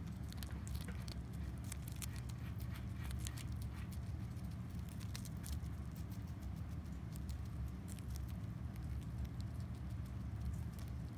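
A pet rat nibbling a crisp lettuce leaf: quick, irregular crunchy clicks of its teeth biting through the leaf, thicker in the first half, over a steady low hum.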